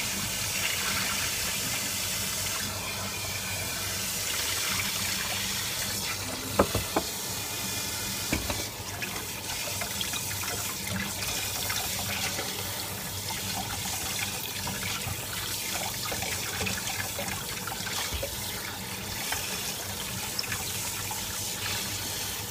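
Kitchen tap running steadily into a stainless steel pot in the sink as blanched pork bones are rinsed under the stream by hand. A few brief knocks come about six and a half seconds in and again shortly after.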